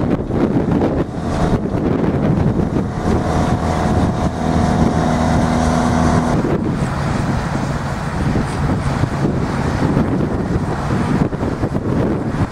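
Engine of a farm machine running steadily, with wind buffeting the microphone. The engine's steady tone stands out from about two and a half to six seconds in.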